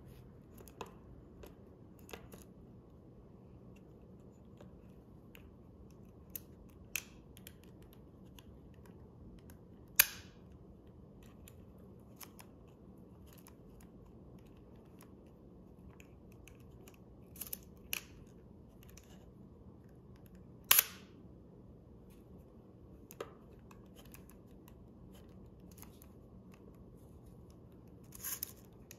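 Leaf shutter of a Schneider Kreuznach 47mm lens being cocked and fired by hand, giving about ten separate sharp mechanical clicks spread out with pauses between them. The two loudest come about 10 and 21 seconds in, each with a brief ring after it.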